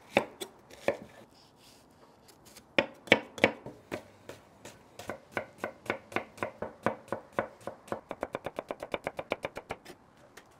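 A knife chopping shallots on a wooden cutting board: a few scattered cuts, then a steady run of knife strokes that quickens to about six a second and stops just before the end.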